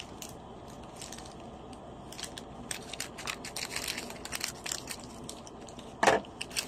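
Scissors snipping through a thin black plastic mailer bag, with a run of crisp cuts and crinkling plastic. A single louder rustle of the bag comes about six seconds in.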